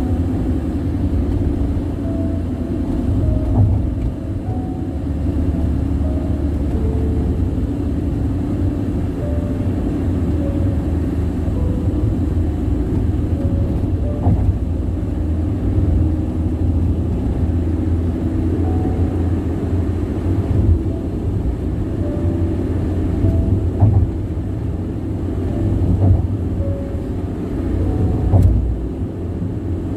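Car tires running at highway speed, a loud steady rumble of tire and road noise, with a few brief knocks.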